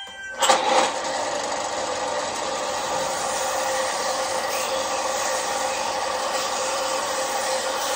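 Electric bench sander switched on about half a second in, then running steadily while the sharp corners of a wooden knife handle are sanded against it.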